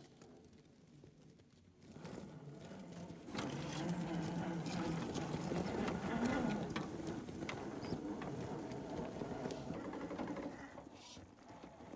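The electric motor and geartrain of a 1/10-scale Axial SCX10 II rock crawler whining at crawling speed, with its tyres crunching and rocks clicking and knocking as it climbs over loose stones. It is quieter for the first couple of seconds and louder from about three seconds in.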